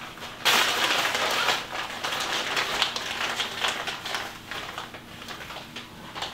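Fabric cover rustling and scraping as it is handled and worked along a plastic frame tube, starting abruptly about half a second in and going on unevenly.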